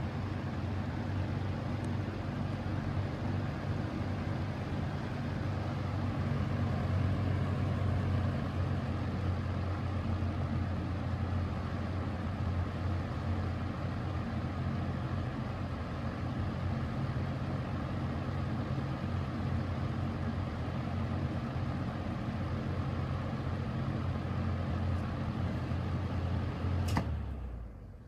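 Old McMillan shaded-pole box-fan motor running a fan blade set at speed: a steady low hum under rushing air. It cuts off sharply with a click about a second before the end.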